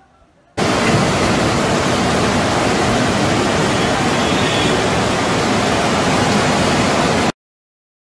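Fast floodwater torrent rushing past: a loud, steady wash of water noise that starts suddenly about half a second in and cuts off abruptly near the end.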